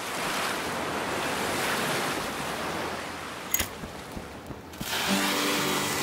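Small waves washing onto a sandy shore, a steady surf hiss, for about three and a half seconds. Then comes a sharp click and a short lull, and from about five seconds in a sparkler fizzes, with soft music notes underneath.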